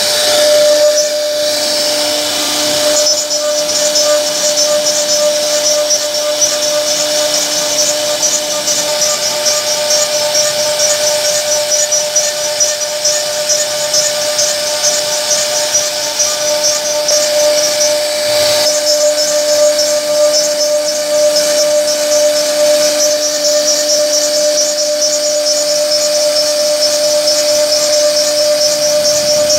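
CNC router spindle running at a steady high whine while its carving bit cuts into a wooden door panel, with a continuous hissing cutting noise over the tone.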